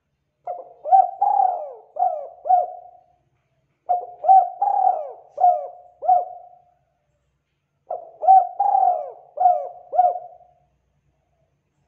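Spotted dove cooing: three phrases about four seconds apart, each a run of about five short notes, some sliding down in pitch.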